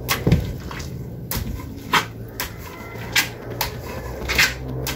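Wooden pestle pounding boiled cassava in a wooden mortar to make nilupak: irregular knocks about twice a second as the mash is worked soft.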